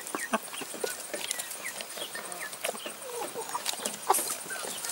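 Hens pecking chopped red peppers from a plastic tray: irregular sharp taps of beaks on the tray, mixed with soft clucks and short chirps.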